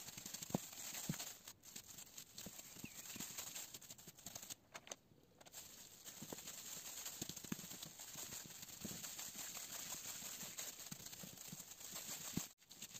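Pizza dough being kneaded by a hand in a plastic glove on a tabletop: soft thuds at an uneven pace as the dough is pressed and pushed against the surface, over a steady hiss.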